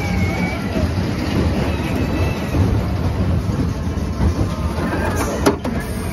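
Kiddie roller coaster train rolling along its steel track, the wheels giving a steady rumble and clatter, with one sharp knock about five and a half seconds in.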